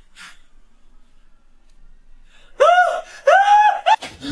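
A man's voice giving two loud, high-pitched screams about half a second each and a short third one, followed near the end by quick gasping breaths.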